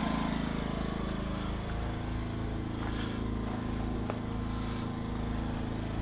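Smarter Tools 2000-watt inverter generator with a Yamaha MZ80 four-stroke engine idling in smart-throttle (economy) mode, heard from about 12 feet away: a steady, even engine hum, super quiet.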